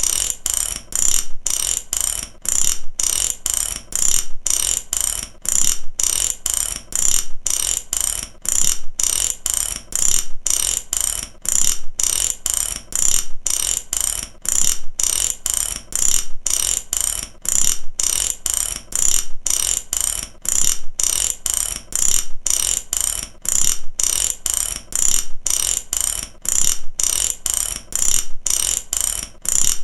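Mechanical ratchet clicking its pawl over the teeth in rapid runs, broken by brief gaps about twice a second, steady and unchanging.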